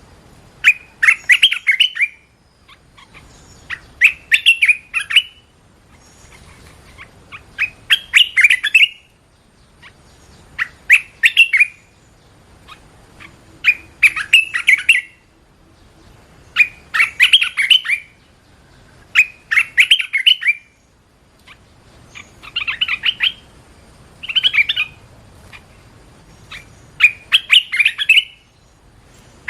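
Red-whiskered bulbul singing: about ten short, bright, warbling phrases, each with sharp clicking notes, repeated every two to three seconds.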